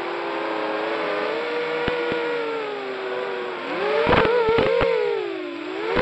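Racing quadcopter's motors and propellers whining, the pitch wandering with the throttle and swelling up and down near the end, with a few sharp clicks about four to five seconds in.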